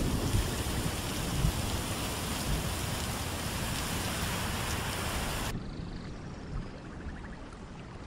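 Steady rush of a waterfall, an even hiss of falling water. About five and a half seconds in it cuts abruptly to a quieter, duller rush of water.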